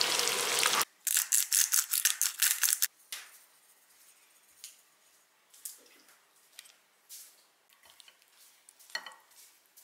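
Food sizzling in a frying pan, cut off under a second in, then about two seconds of quick wet scraping and clicking as food is stirred in a pan, then a few faint light clinks.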